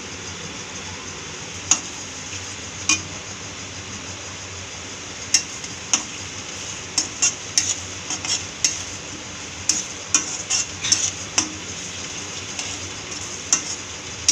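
Chopped onions sizzling in hot oil in a steel kadhai, with a metal spatula scraping and clinking against the pan as they are stirred. The clinks come now and then at first, then more often from about five seconds in.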